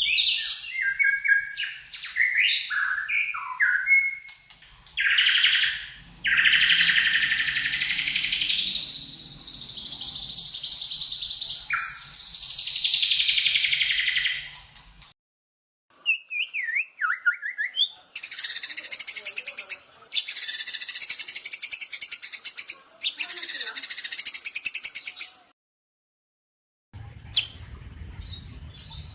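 Recorded songbird song of the kind played to tutor caged songbirds: quick varied chirps and whistles, then long, rapid buzzing trills. The song comes in separate spliced segments that cut off abruptly into silence about halfway through and again near the end.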